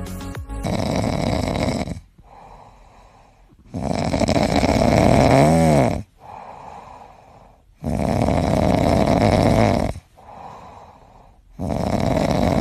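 A dog snoring loudly in its sleep: long snores of about two seconds, repeating roughly every four seconds, with quieter breaths between.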